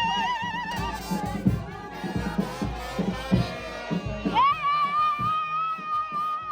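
Background music with a steady beat; its wavering melody slides up about four seconds in to a long held note.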